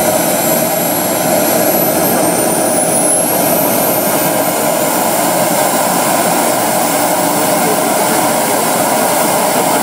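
The small jet engine of a radio-controlled MiG-15 model running while the model stands still: a steady rushing hiss with a high, thin whine. The whine climbs in pitch about two seconds in, then holds.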